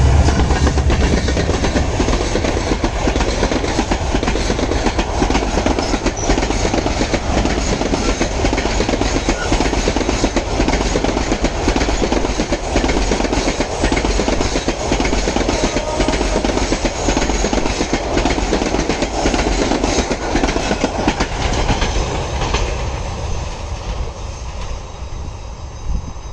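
Subarna Express passenger train passing at high speed behind its diesel locomotive, the locomotive going by right at the start, then a long run of coaches with wheels clattering quickly over the rail joints. The sound fades near the end as the train pulls away.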